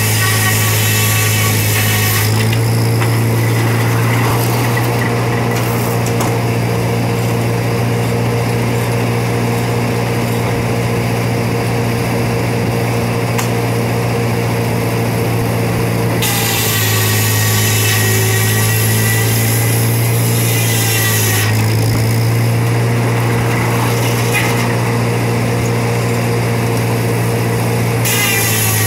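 Carriage-type circular sawmill running: the big circular blade, driven by a steady-running power unit, sawing lengthwise through a log as the carriage is fed into it. A high whine from the blade rises and falls away at the start, for about five seconds just past the middle, and again near the end, over the unbroken low hum of the drive.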